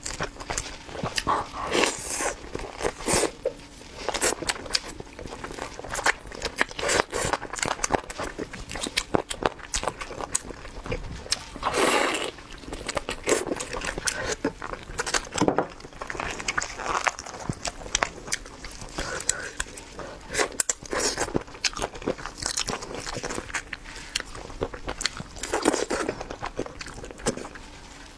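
Close-miked eating of steamed chicken: chewing and mouth sounds with many irregular sharp clicks and smacks, and the meat being pulled apart by hand.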